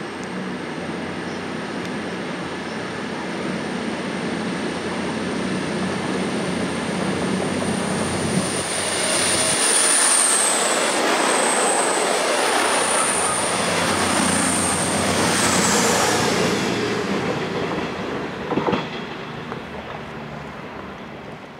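CrossCountry diesel multiple unit running past along the platform: engine and wheel noise grows as it approaches, is loudest as the coaches pass and then fades as it leaves, with wheels clicking over rail joints. A steady high whine runs over it, and a single sharp clunk comes near the end.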